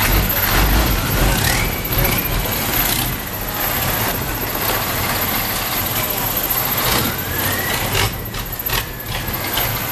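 Long-tail boat engines running, a steady rumble with the pitch of one engine rising and falling twice as it is throttled.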